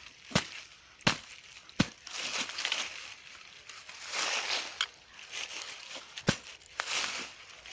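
Small shovel digging into dry leaf litter and soil: crunching and rustling of leaves, broken by about five sharp knocks as the blade strikes in.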